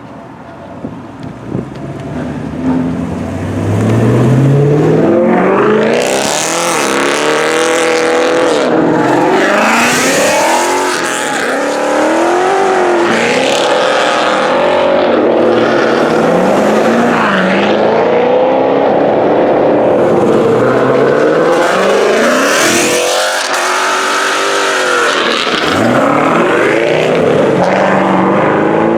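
Car engines revving and accelerating hard, the pitch climbing and dropping again and again, rising in loudness over the first few seconds and staying loud.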